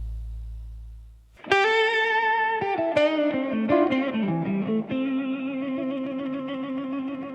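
Blues music: a low sustained bass tone fades out, then a solo guitar enters about a second and a half in, playing a slow phrase with a stepwise descending run and ending on a long held note.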